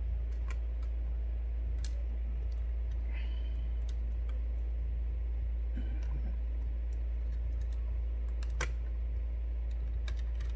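Scattered small clicks and taps of a precision screwdriver and screws being handled on a laptop's metal drive caddy, a few sharper clicks among them, over a steady low hum.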